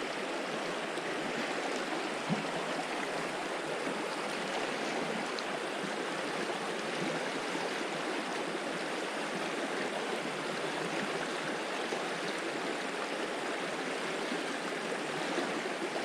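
Mountain trout stream rushing steadily over rocks.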